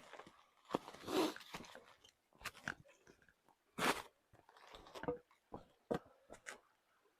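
Irregular crunching footsteps on the dry forest floor, a few steps a second with quiet gaps between them.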